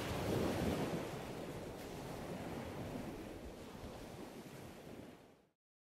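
Ocean surf washing onto a beach, a steady rush of waves that slowly eases off and cuts out about five and a half seconds in.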